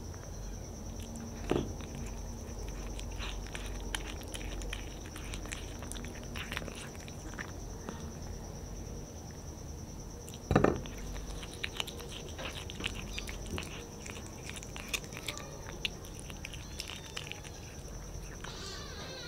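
A cat chewing raw meat: quick, irregular wet clicks and smacks, with two louder thumps, about one and a half and ten and a half seconds in. A steady high-pitched whine runs underneath.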